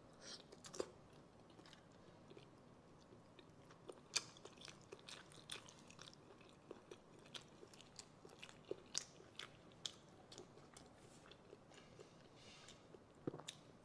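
Quiet, close-miked chewing and biting of cooked sea snail meat, with many small wet mouth clicks and smacks scattered through.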